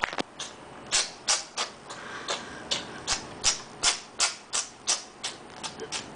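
A cat sneezing over and over in a fit: short, sharp, hissy sneezes in quick succession, about three a second, without a break.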